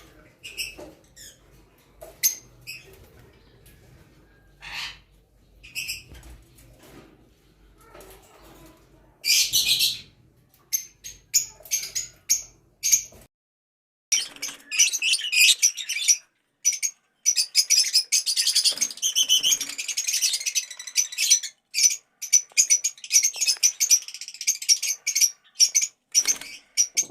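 Lovebirds in an aviary chirping: scattered short, high calls at first, then, after a sudden brief silence about halfway through, a dense flock chatter of rapid chirps.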